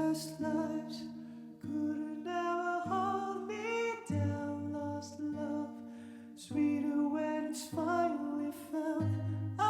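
Music: a slow, wordless sung or hummed melody over held notes, in a lullaby-like style.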